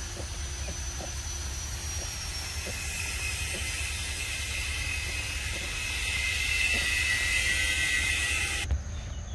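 A steady high insect drone, a cicada chorus, swelling from about three seconds in and cutting off suddenly near the end, over a low rumble. Faint soft clicks come from a macaque biting and chewing a mango.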